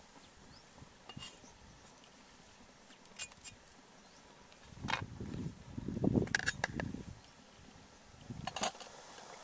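Scattered light clicks and taps of a cleaver against a plate and a wooden chopping block, with a louder low rumble of handling in the middle.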